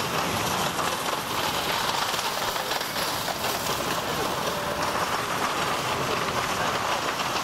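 Steady outdoor city din at a busy station forecourt: an even rushing noise with no distinct events standing out.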